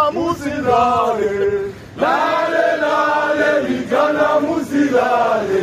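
A group of men chanting in unison while marching, in long sung phrases with a short break just before two seconds in.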